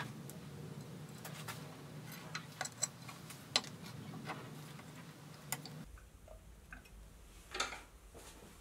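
Scattered light clicks and taps as the grinder's water pan is fitted into place beneath the grinding stone, over a faint low hum that cuts off about six seconds in.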